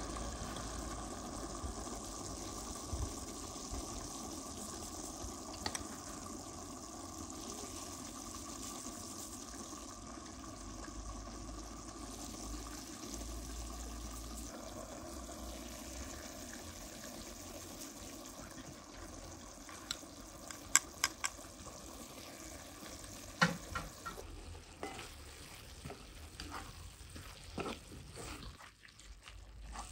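Minced meat sizzling steadily as it fries in a metal cauldron and is stirred with a wooden spatula. In the second half a few sharp knocks and scrapes of the spatula against the pot stand out above the frying.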